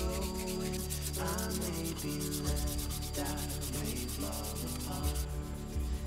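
Hand sanding of a knife's wooden handle: quick, regular back-and-forth rubbing strokes that stop about five seconds in. Melodic pitched tones run underneath.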